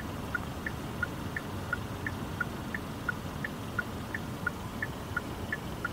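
A 2017 Hyundai Sonata's electronic warning chime sounding continuously, short beeps alternating between a higher and a lower tone about three times a second, over a steady low background noise.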